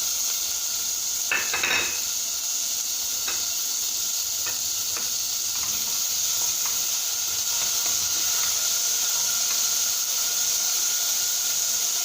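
Onion and potato frying in hot oil in a pressure cooker pot, a steady sizzle. A short clatter of a utensil against the pot about a second and a half in, then a few light scrapes of stirring.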